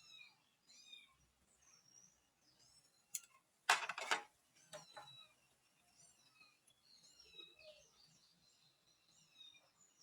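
A sharp click, then a short rattle of clicks and knocks near the middle, from handling the router's plastic parts during the teardown. Repeated short, high chirping calls from an animal sound throughout in the background.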